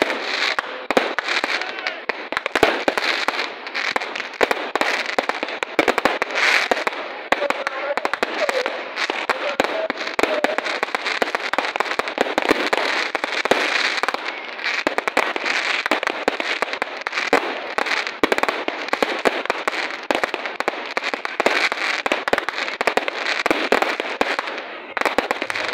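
Fireworks display going off without a break: a dense, rapid crackling and banging of bursting fireworks and firecrackers, easing briefly just before the end.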